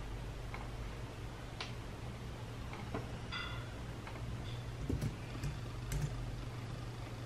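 Scattered light taps and clicks from hands on a desk, tablet and keyboard, a few seconds apart, over a steady low hum. A brief squeak comes about three and a half seconds in.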